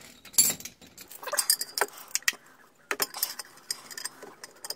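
Irregular metallic clinks and knocks of a ratchet and socket being handled and fitted onto a bolt.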